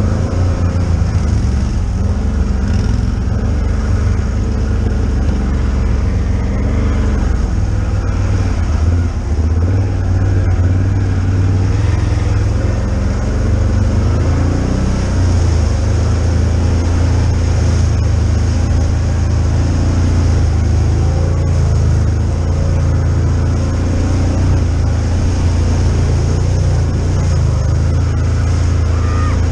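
Can-Am ATV engine running steadily under way on a trail, its note rising and falling slightly with the throttle.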